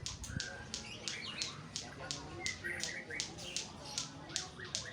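Small birds chirping in short notes that glide up and down, among sharp clicks about two to three a second.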